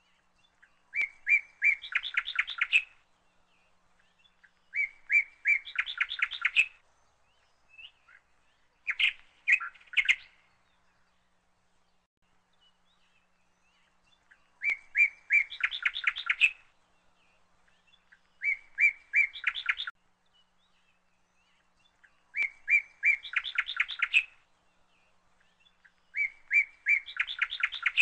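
A songbird singing the same short phrase over and over, about every four seconds: a few clear notes, then a fast trill.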